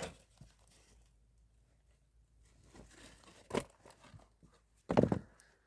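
A few short rustling, crunching handling noises, the loudest about five seconds in.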